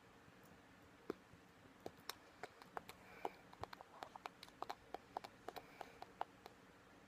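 Light, irregular clicks and taps, a few a second, starting about a second in and stopping near the end, over faint room tone.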